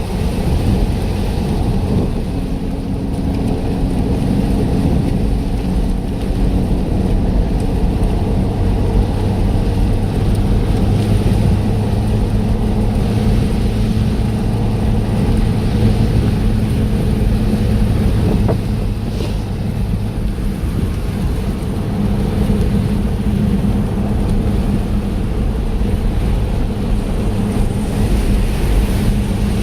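A car driving: steady engine and road noise, with a low hum that shifts pitch a few times.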